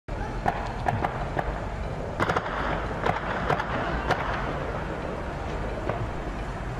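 Gunfire: scattered single shots and several in quick succession about two seconds in, stopping after about four seconds. Beneath them runs the steady low rumble of a car's engine.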